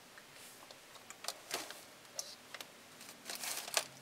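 Faint, scattered clicks and light knocks of a handheld plastic welding gun and its power cord being handled and set down on a tabletop, with a small cluster of clicks near the end.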